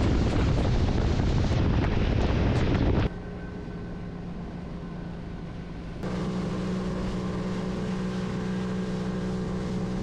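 Motorboat under way at speed: a loud rush of water spray and wind. About three seconds in this cuts to the steady drone of an outboard motor running at constant speed, which is louder from about six seconds in.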